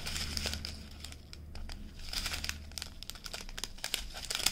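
Small plastic packaging bags crinkling and crackling irregularly as they are handled.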